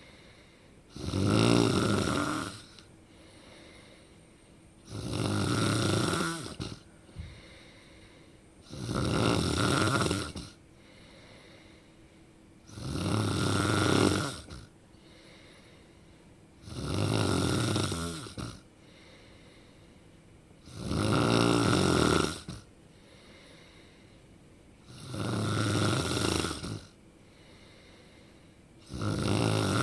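A person snoring in a slow, even rhythm: eight snores, each about two seconds long, coming roughly every four seconds, with quiet breaths between.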